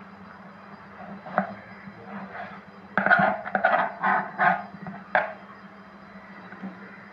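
Kitchen knife cutting tomatoes on a plastic chopping board: a single knock about a second in, then a quick run of about six knocks between three and five seconds in.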